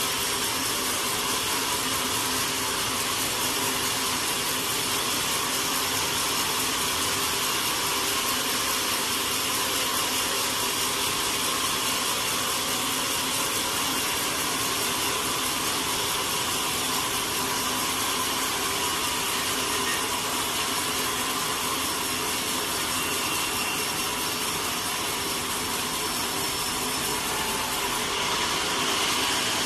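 Sawmill saw running steadily, a continuous mechanical noise with a faint constant whine.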